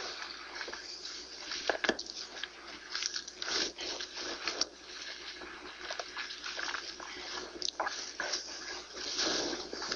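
Bible pages being leafed through: a steady crackly rustle of thin paper with many small sharp flicks and clicks, as a passage is looked up.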